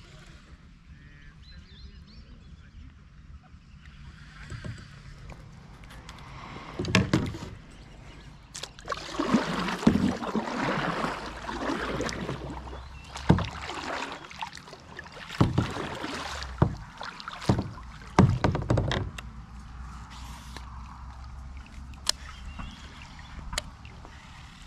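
Kayak paddle strokes through the water: splashing with several sharp knocks, in a busy stretch from about seven to nineteen seconds in, quieter before and after.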